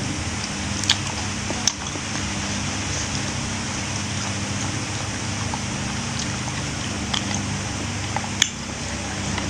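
A few sharp clicks, about a second in, just before two seconds and near the end, from eating utensils against a bowl of bakso, over a steady hum like a fan.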